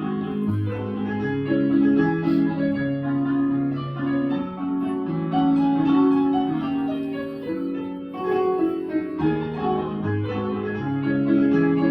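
Piano playing a slow, lyrical piece, held melody notes over bass notes that change about once a second.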